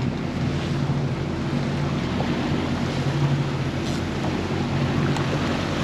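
Boat engine running steadily at trolling speed, with the wake rushing along the hull and wind on the microphone.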